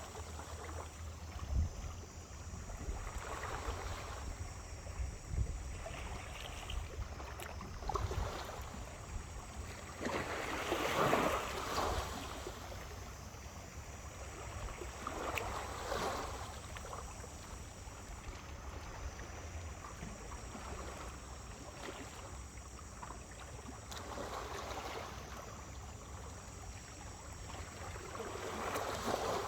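Small waves washing up on a beach and drawing back every few seconds, the biggest about 11 seconds in, over a steady low rumble.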